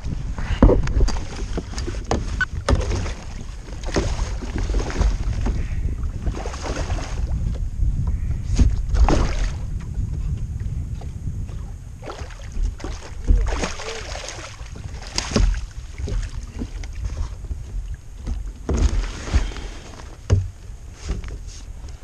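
Wind rumbling on the microphone over a kayak, with irregular water splashes and knocks against the hull as a big black drum is fought to the side and scooped up with a landing net.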